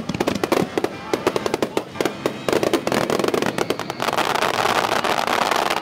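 Aerial firework shells bursting in rapid succession: a fast string of sharp bangs and crackles that thickens into a dense, continuous crackling hiss from about four seconds in.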